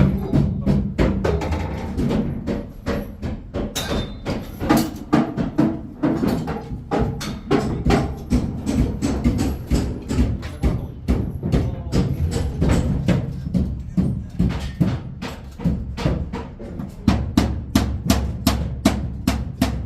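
Background music with a steady percussive beat of sharp knocks over a bass line.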